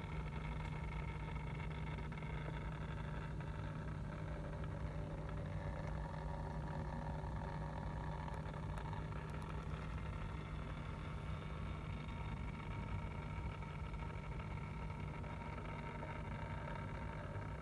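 Steady electric hum of a small motorized turntable turning a statue, a low drone with fainter higher tones above it.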